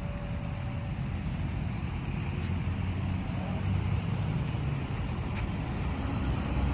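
Steady low rumble of road traffic, cars and a bus or truck passing, slowly growing a little louder.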